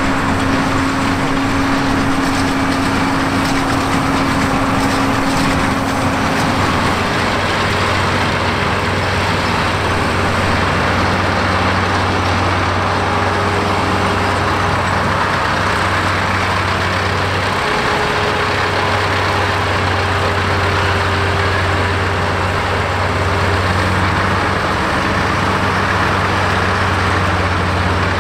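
Diesel tractor engines working under load in a hay field: first a Fendt Vario pulling a Fendt big square baler, then Fendt Favorit tractors pulling ROC belt mergers. The steady engine hum is continuous, and its tone shifts about seven seconds in.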